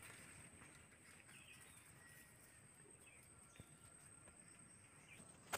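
Near silence: faint outdoor ambience with a few soft bird chirps over a steady high-pitched whine.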